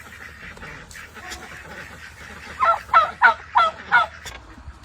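Domestic goose honking: five loud calls in quick succession starting a little past halfway, each dropping in pitch.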